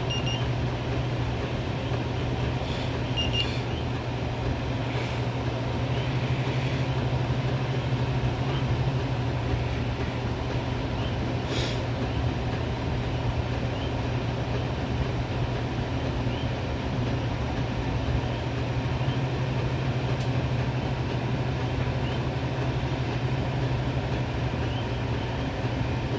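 Homemade fan built from a washing machine, its motor running steadily with a low hum.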